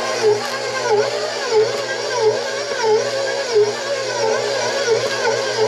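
KitchenAid stand mixer running with its dough hook kneading pizza dough in a steel bowl: a steady motor hum with a regular pulse about one and a half times a second as the hook turns the dough.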